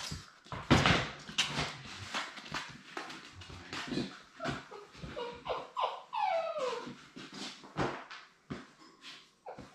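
Young Labrador retriever puppies whimpering, a cluster of short whines that bend and fall in pitch around the middle. Under them runs a string of clicks and knocks from movement on the hard floor.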